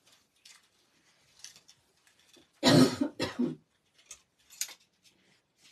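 A woman coughing twice in quick succession, harsh and loud, about halfway through, from a voice tired out by a day of talking. Faint rustling comes before and after.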